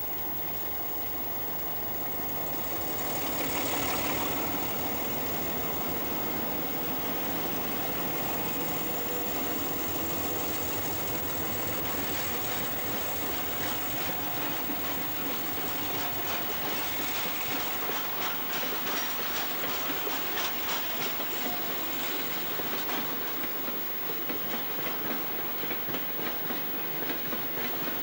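Freight train hauled by a Renfe class 321 diesel-electric locomotive passing close by, the running locomotive growing louder over the first few seconds. Hopper and flat wagons then roll past, their wheels clicking in a steady rhythm over the rail joints for the second half.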